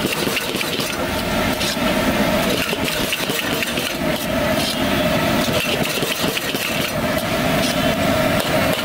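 Steel ladle scraping and knocking against a large wok as noodles, cabbage and manchurian are stir-fried, with irregular scrapes every second or so over the steady rush of a gas burner under the pan.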